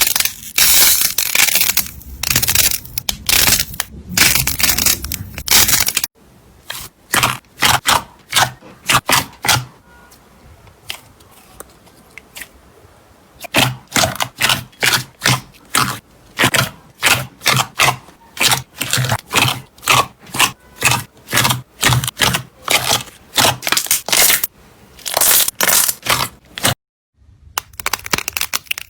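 Slime being squeezed and poked by hand, giving sharp crackles and pops. The sound is set in short clips cut together: a dense stretch of crackling, then after an abrupt cut a steady run of pops at about two or three a second, and briefly silent near the end before another crackling clip begins.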